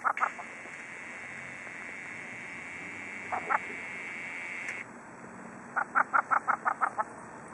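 Vega gull calling: a rapid series of short, repeated laughing calls. It trails off just at the start, a pair of calls comes about three and a half seconds in, and a fast run of about eight calls near the end.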